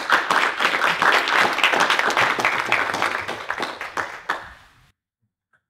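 A small audience applauding, thinning out over the last second and stopping about five seconds in.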